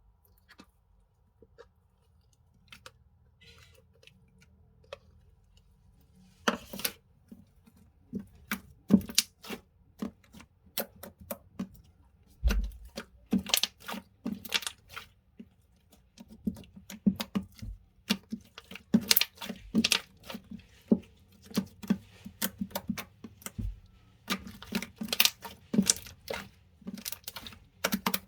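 Handmade slime being squished and pressed by hand, giving many sharp clicks and pops. Only a few faint clicks at first, then they come thick and fast from about six seconds in.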